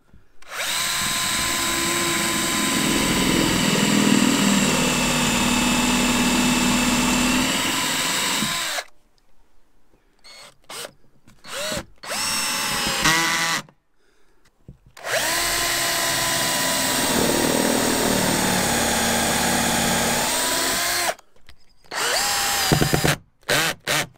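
Cordless drill-driver drilling pilot holes and driving screws through a softwood batten into plywood. The motor runs steadily twice, for about eight seconds and then about six, and in between and near the end it gives several short bursts as screws are driven home.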